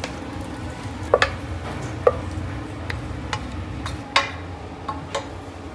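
Irregular clinks and knocks of kitchenware, about nine in all, two of them ringing briefly, over a steady low hum.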